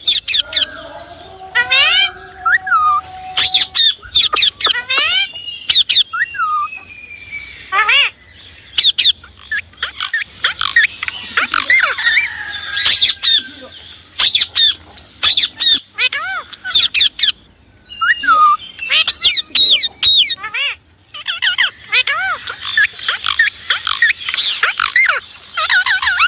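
Indian ringneck parrot calling: loud, shrill chirps and screeches with quick up-and-down pitch sweeps, coming in rapid bursts with short pauses between.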